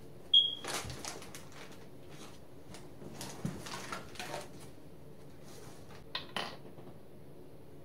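Small objects clinking and knocking together as they are rummaged out of a fabric tote bag, with light rustling. A sharp clink with a short ring about half a second in is the loudest, followed by scattered clicks in a few clusters.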